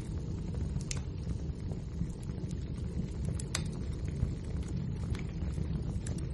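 Wood fire burning in a fireplace: a steady low noise from the flames with scattered sharp crackles and pops from the burning logs, the clearest about a second in and about three and a half seconds in.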